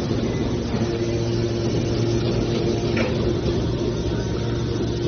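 Hydraulic scrap metal baler running with a steady hum, with a single sharp click about three seconds in.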